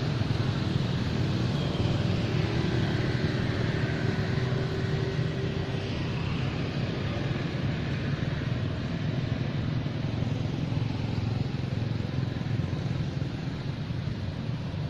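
Steady low rumble of background noise, with faint thin high-pitched sounds about two to six seconds in.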